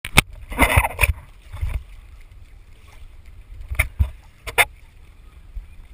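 Water splashing and slapping against the hulls of a small Windrider sailing trimaran under way in choppy water: several sharp splashes, the loudest in the first second and around four seconds in, over a steady low wind rumble on the microphone.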